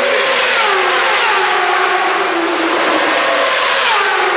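1000cc superbike engines running at high revs, their pitch falling as they pass, with a second downward sweep near the end.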